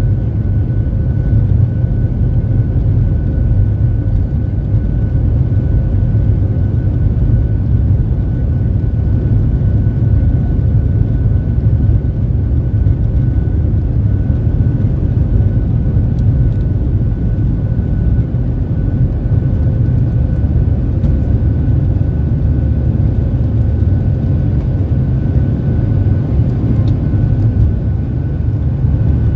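Boeing 737-700's CFM56-7B turbofan engines at takeoff thrust, heard from inside the cabin over the wing: a loud, steady roar with a steady high whine through the end of the takeoff roll, liftoff and initial climb.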